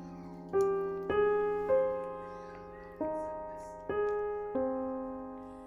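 Slow, gentle piano background music: single notes struck one after another about every half second to second, each ringing out and fading.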